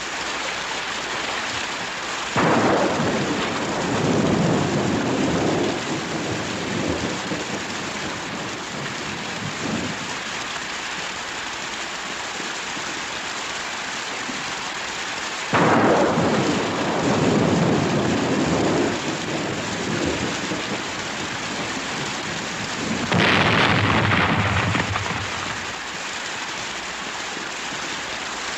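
Steady rain with three claps of thunder, about two seconds in, about a third of the way in and about two-thirds in, each rumbling and fading over a few seconds.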